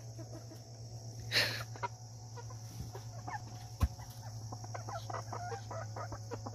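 Chickens clucking softly, many short quiet calls in a row, with a brief rasping burst about a second and a half in and a sharp tap near four seconds, over a steady low hum.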